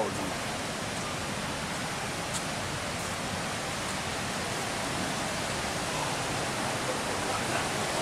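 Steady rush of river rapids and a waterfall tumbling over rocks, an even hiss of water.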